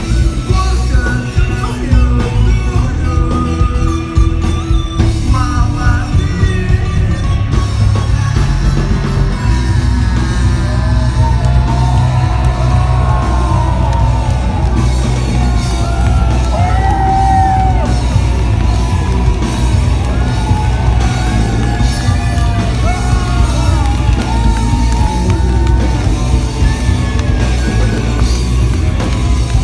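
Rock band playing with drum kit and guitar; singing voices come in about nine seconds in and carry the melody over the band.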